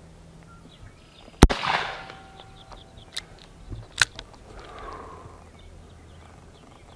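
Korth NXS .357 Magnum revolver fired in slow, single aimed shots. Two sharp shots come about one and a half and four seconds in, the first the louder with a brief ring-out after it, and a fainter sharp crack falls between them.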